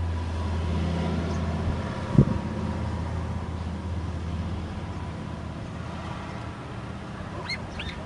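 Steady low rumble of background noise, with a single thump about two seconds in. Near the end, a caged hill myna gives a few short high calls.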